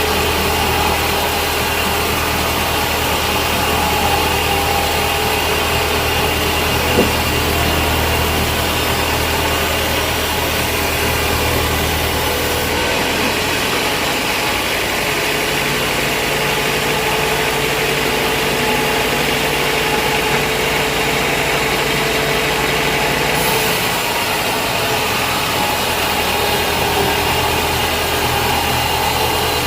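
A large vertical band saw and its drive running steadily with a dense machine noise. Its low hum drops out abruptly about 13 seconds in and comes back about 24 seconds in, and there is one sharp click about 7 seconds in.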